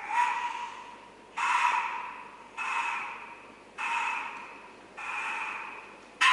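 Ancient Mexican wind-whistle resonator blown in five short, breathy, hissing blasts about a second and a quarter apart, each starting sharply and fading away, with a whistled tone inside the hiss.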